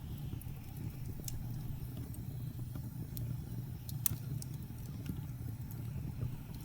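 Wood fire crackling, with scattered sharp pops, the loudest about four seconds in, over a steady low rumble of blizzard wind.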